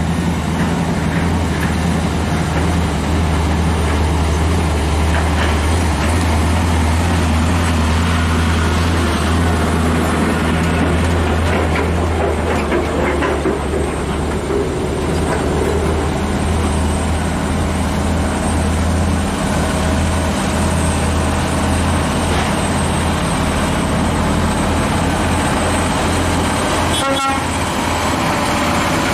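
Scania R580 truck's V8 diesel engine running steadily, a deep, even drone with no change in speed.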